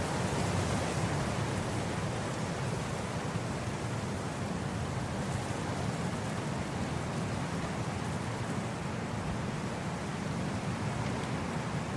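Wind blowing across grass: a steady rushing hiss over a low rumble of wind on the microphone.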